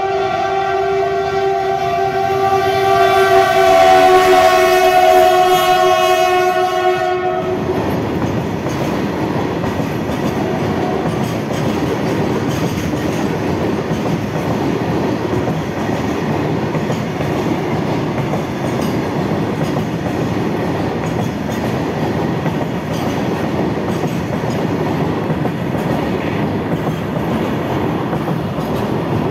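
WDG6G diesel locomotive sounding a long air-horn blast of about seven seconds as it passes. The horn cuts off and gives way to a steady rumble and clatter of loaded tank wagons rolling by over the rail joints.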